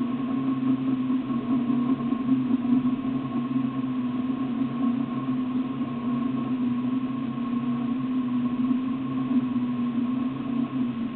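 4x4 vehicle engine idling: a steady low hum with a fainter, higher steady whine above it.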